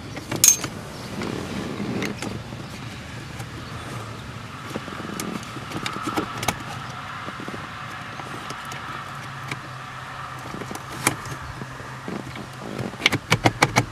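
Mini ratchet socket wrench clicking in short runs while loosening a screw, mixed with knocks and rattles of hands working against plastic HVAC housing and wiring. A quick run of about eight clicks comes near the end, over a steady low hum.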